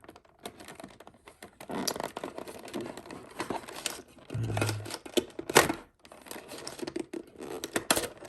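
Packaging rustling and crinkling as the contents of a trading-card box (booster packs and a promo card) are taken out, with scattered clicks and knocks; the loudest knock comes about five and a half seconds in.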